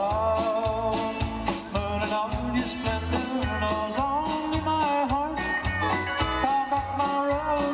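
Live country band playing: electric and acoustic guitars with bending lead notes over drums and a steady, pulsing bass beat.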